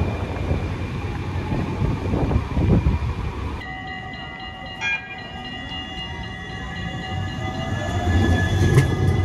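Siemens Avenio tram moving along street track, its electric drive giving a steady multi-tone whine. There is a brief bright ding about five seconds in, and the rumble of wheels on rail grows louder toward the end as the tram comes past. The first few seconds are noisy rumble with wind on the microphone.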